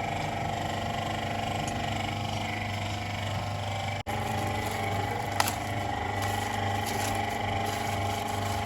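Steady hum of a running machine. It cuts out for an instant about four seconds in, and a sharp click comes just over a second later.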